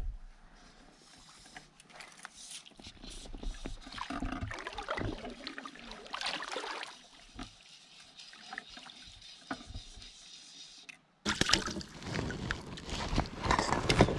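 Water lapping and sloshing against a small fishing boat, with scattered knocks of gear. After a sudden cut, louder irregular rustling and handling noise as a trout is held on a mesh measuring net.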